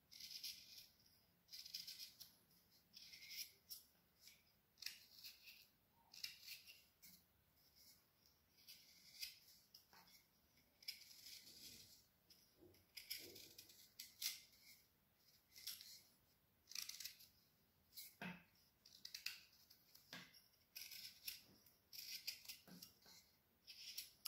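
Carving knife paring thin shavings from a wooden branch: short, faint scraping cuts, about one a second.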